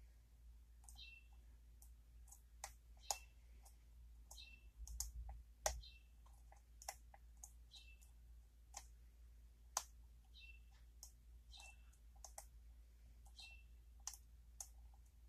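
Lock picking on a pin-tumbler challenge lock: small, irregular metal clicks and ticks from the pick and tension wrench working the pins, with a few sharper clicks.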